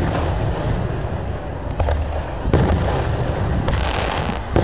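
Aerial firework shells bursting high overhead: several sharp bangs at uneven gaps, with a brief crackling hiss just before the last one.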